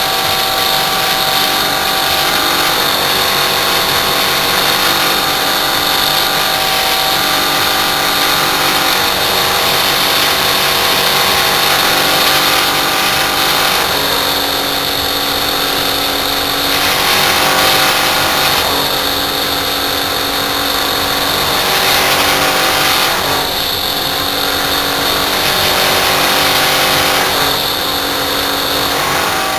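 Rotary air-conditioner compressor running loudly against a sealed high side, pumping up pressure towards overload. Its steady hum shifts in pitch several times in the second half.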